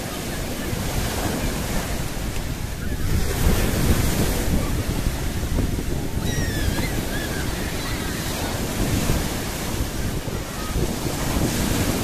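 Rough Black Sea surf breaking and washing up a sandy beach in continuous swells, strongest a few seconds in, with wind buffeting the microphone.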